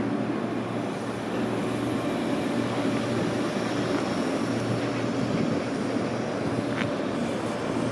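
DB Class 425 electric multiple unit running, a steady hum with constant tones over rolling noise. A short click about seven seconds in.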